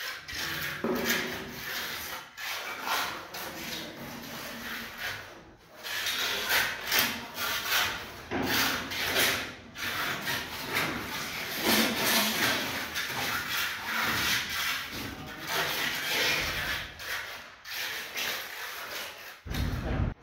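Steel trowel scraping and rubbing over a freshly poured wet concrete countertop slab in repeated irregular strokes as the surface is smoothed.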